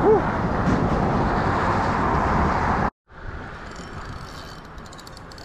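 Steady road noise from traffic crossing a highway bridge, which cuts off abruptly about three seconds in and gives way to a quieter steady rushing.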